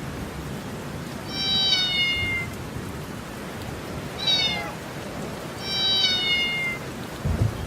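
A cat meowing three times, the middle call shorter and falling more steeply, over steady rain. A few low thuds near the end.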